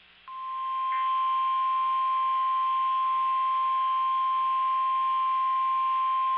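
NOAA Weather Radio's 1050 Hz warning alarm tone: a single steady pitched tone that comes on just after the start, swells over the first second, then holds loud and unbroken over a faint radio hiss. It is the alert that announces a warning broadcast, here a tornado warning.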